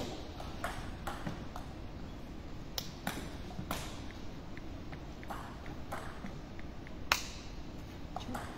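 Table tennis ball clicking: sharp, irregular clicks as the ball hits the table and the bats, the loudest about seven seconds in as a rally starts.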